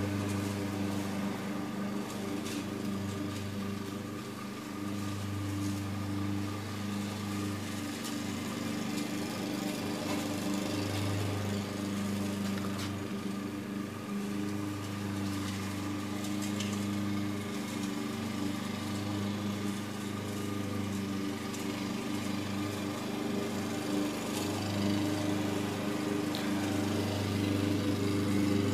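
A small engine running steadily, a continuous low hum whose lowest tone swells and fades slightly.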